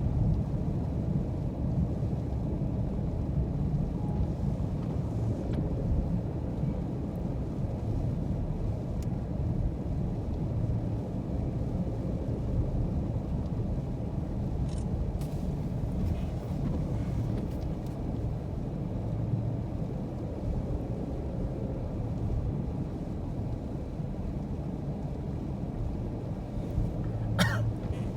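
Car driving steadily, with a constant low engine and road rumble. A brief sharp click-like sound comes near the end.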